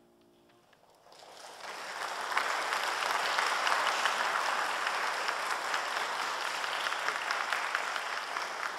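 The last piano chord dies away, then about a second in an audience starts applauding, builds quickly and keeps up steady clapping.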